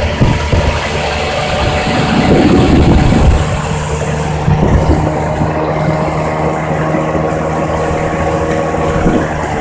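Outboard motor of a bass boat running steadily while the boat is underway, a steady engine hum under a rushing noise of wind and water.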